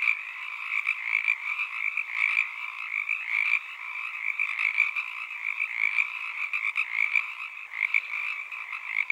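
A chorus of many frogs calling together, a dense pulsing layer of calls with no break.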